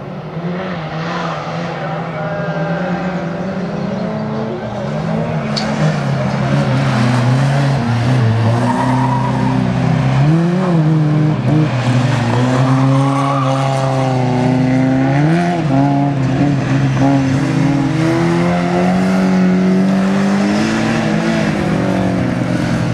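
Bilcross stock-car engines running hard as the cars race round the track, their pitch dipping and climbing again a couple of times midway, as when a driver lifts off and accelerates again.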